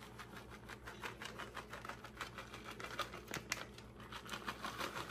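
Plastic bag of shredded cheese crinkling as cheese is shaken out of it, a rapid, irregular run of small ticks.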